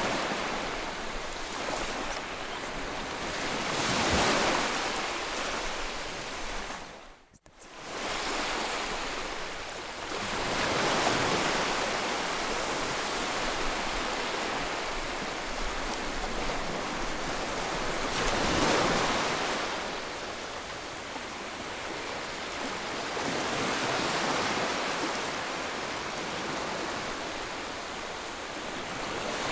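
Ocean surf: waves washing in and drawing back, the rush swelling and fading every several seconds. A brief gap about seven seconds in, where the sound drops out almost to nothing and then returns.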